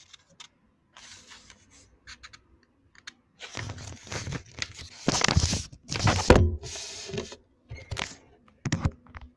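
A sheet of A4 paper rustling and crinkling as it is folded. From about three and a half seconds in, louder scraping and a few heavy knocks sound as the phone recording it is handled.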